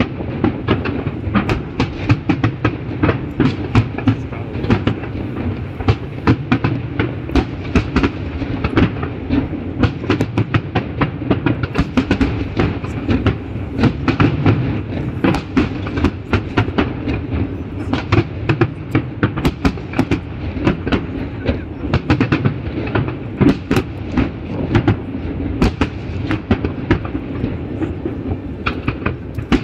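Fireworks going off in dense, irregular succession: many sharp bangs and crackles over a continuous rumble.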